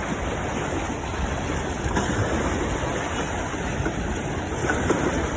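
Steady rushing noise of wind and surf, with no distinct events.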